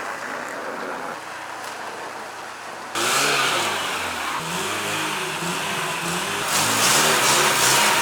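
Car engine revving up and down repeatedly, coming in suddenly about three seconds in over a constant hiss.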